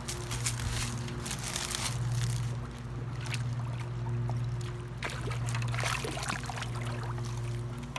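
Water splashing and trickling in irregular bursts as a hooked carp thrashes at the surface while it is netted, over a steady low hum.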